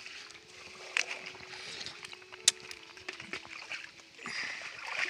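A small wood fire crackling with a few sharp pops, over the rustle of a large leaf as cooked rice is pressed and spread on it by hand.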